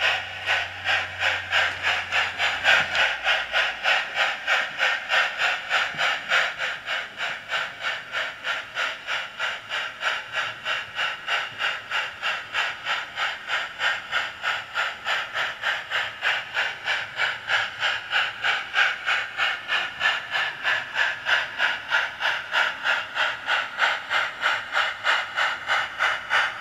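Simulated steam-exhaust chuffing from the onboard sound unit in the tender of a 7mm-scale Mudhen (D&RGW K-27) model locomotive, a steady beat of hissing chuffs at about three a second as the loco moves off under inertia control.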